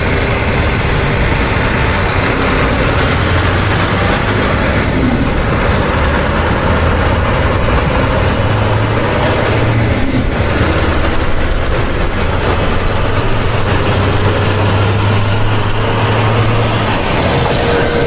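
Truck engine running steadily, a low hum under a constant rumble.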